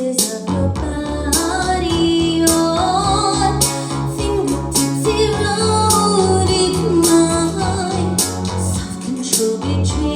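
A rock song: guitar and bass guitar with steady drum hits and a woman singing.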